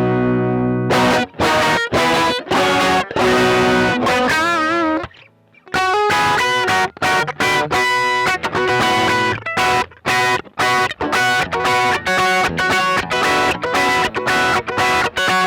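Electric guitar played through an OCD overdrive pedal, mildly distorted. A held chord rings out, then picked notes with one note wavering in vibrato, a brief break about five seconds in, and then a run of short, rhythmic chord stabs.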